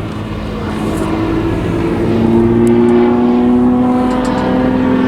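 Propeller engine of an Extra 300 NG aerobatic plane running in flight, a steady drone whose pitch climbs slowly and grows a little louder a couple of seconds in.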